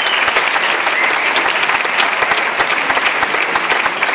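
Theatre audience applauding steadily, calling for an encore, with a brief whistle about a second in.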